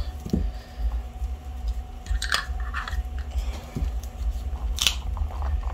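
Light handling sounds, a few sharp clicks and small scrapes, as gold mica powder is added to clear epoxy resin and stirred in, over a steady low hum.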